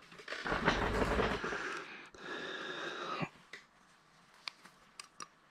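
Breathing close to a head-worn microphone for about three seconds, then a few faint small clicks as a metal tool works against the parts of a 1/64 scale die-cast model truck.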